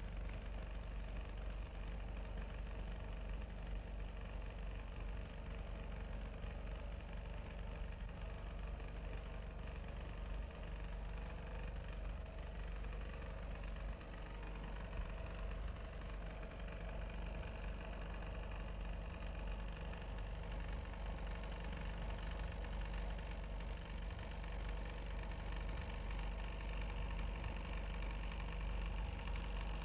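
A steady, unchanging low mechanical hum with several constant pitched tones under a hiss.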